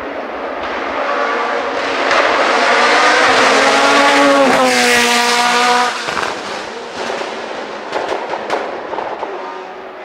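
Open-cockpit sports prototype race car accelerating hard past at full throttle, its engine note rising through the gears. It is loudest about five seconds in as it goes by, the pitch dropping as it passes, then fades up the hill with a few sharp cracks.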